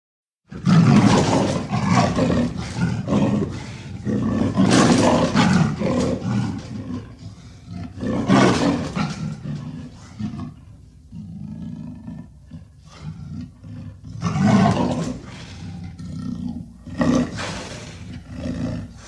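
Leopard roaring in a run of loud, low calls, about five main bouts, with a low rumble carrying on between them.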